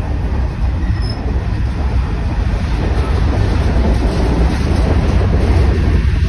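Covered hopper cars of a freight train rolling past close by: a steady, loud noise of wheels running on the rails.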